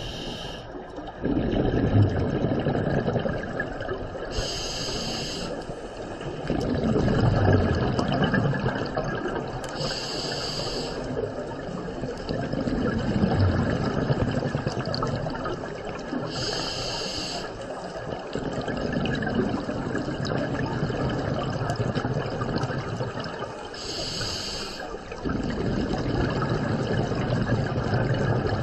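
Scuba diver breathing through a regulator underwater: a short hiss on each inhale, four times about six seconds apart, each followed by a long bubbling rumble of exhaled air.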